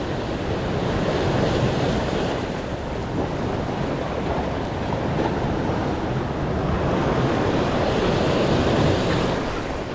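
Ocean surf breaking and washing over the rocks of a reef edge, mixed with wind buffeting the microphone. The rush swells and eases in slow surges.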